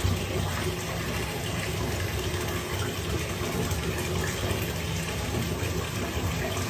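Running water, a steady even rush that starts and cuts off abruptly.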